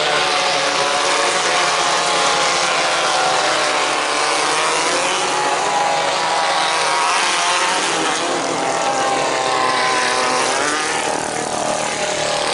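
1600cc off-road race buggies' engines running hard around the dirt track, their notes rising and falling as the cars accelerate and back off.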